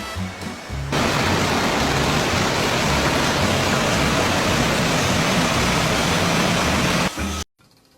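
A steady, loud rushing hiss, like water spray or rain, that starts about a second in and cuts off suddenly near the end.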